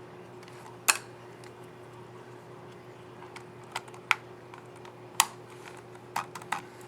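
Keycap on an MSI GP63 Leopard 8RE laptop keyboard clicking as it is snapped onto its scissor mechanism and pressed: about seven sharp, irregularly spaced clicks over a steady hum.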